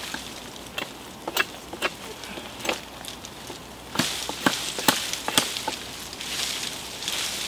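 Hatchet strokes trimming side twigs off a thin branch: about ten sharp knocks at uneven spacing, with twigs and brush rustling between them.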